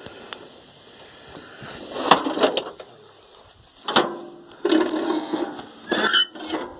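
Mechanical clunks and ratcheting clicks from a Craftsman LT10 riding mower's gear shift and drive linkage being worked, in several short bouts.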